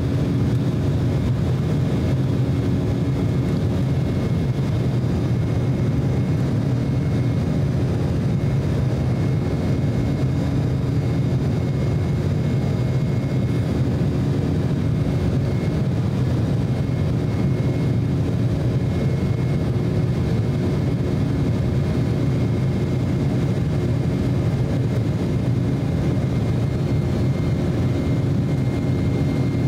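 Cabin noise inside an Embraer E190 airliner climbing shortly after takeoff: the steady sound of its twin GE CF34-10E turbofan engines and rushing airflow, heavy in the low range, with a few faint steady high whining tones above it.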